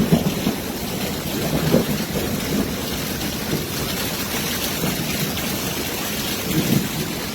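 Heavy rain pouring steadily, with several brief low rumbles of thunder.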